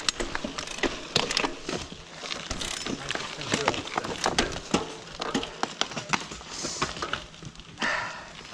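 Mountain bike riding over a rocky forest trail: tyres crunching on stones and the bike rattling, with many sharp irregular knocks.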